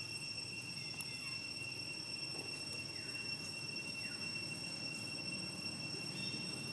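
Outdoor ambience dominated by a steady, high-pitched insect drone, with a low rumble underneath and a couple of faint short falling chirps in the middle.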